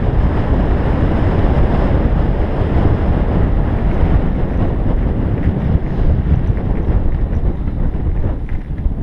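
Strong wind noise buffeting the microphone of a camera mounted on a road bike descending a mountain pass at speed: a steady, loud rush heaviest in the low end, easing off slightly near the end.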